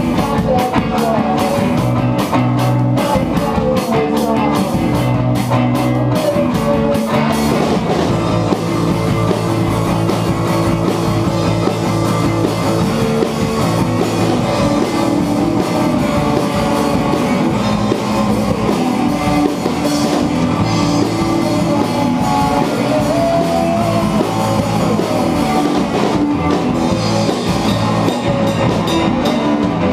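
Loud live instrumental rock played on a drum kit and amplified electric guitars, with a steady driving beat.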